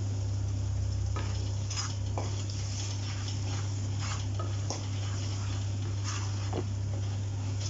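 Spiced mutton sizzling in oil in a non-stick pan, stirred and scraped with a wooden spatula, with scattered light knocks of the spatula against the pan.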